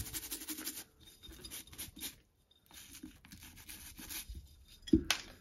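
Brush scrubbing moss and soil off a bonsai's root base, in short scratchy strokes with brief pauses. A sharp knock comes about five seconds in.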